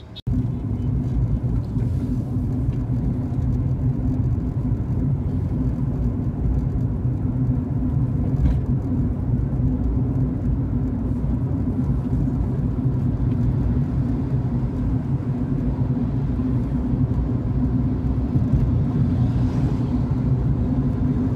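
Steady engine and road noise heard inside a car cabin while driving along a highway: an even low rumble with a constant hum.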